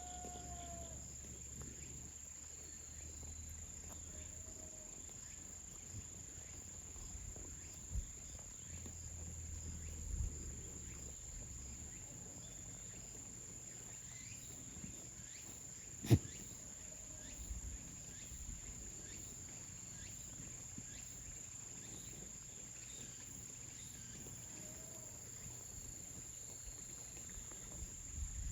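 Insects keeping up a steady high-pitched drone, with a few faint short calls now and then. A single sharp knock stands out about sixteen seconds in.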